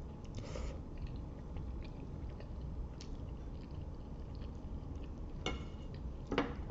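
A person chewing a mouthful of spaghetti, with soft wet mouth sounds and small clicks, and a couple of brief louder smacks near the end.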